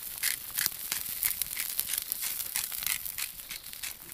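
Hot fat popping and crackling in cast-iron skillets of bacon and fried eggs over a campfire: irregular sharp crackles, several a second.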